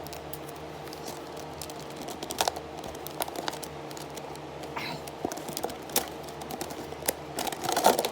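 Rubik's cube packaging being opened by hand: crinkling and tearing with scattered sharp clicks and rustles, busier near the end.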